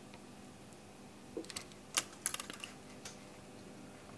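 Light clicks and taps of wires and a soldering iron being handled at a quadcopter frame's power leads, most of them bunched around the middle, over a faint steady hum.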